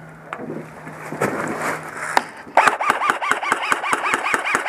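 Airsoft rifle firing a continuous full-auto burst that starts a little past halfway in: evenly repeated shots, about five a second, each with a short whine from the gearbox cycling.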